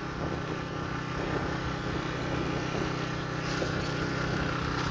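Kraton IGG-1000 inverter petrol generator running steadily at an even, low engine speed, with its economy mode switched on.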